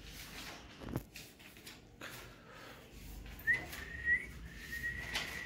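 Alexandrine parakeet whistling: one long thin whistle that starts about three and a half seconds in, rises briefly, then holds a steady pitch with a small upward flick partway. A faint click comes about a second in.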